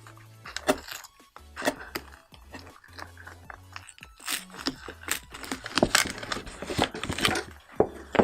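Plastic packaging crinkling and tearing as small plastic figure accessories are unwrapped and handled, a run of short crackles that grows busier in the second half. Quiet background music plays underneath.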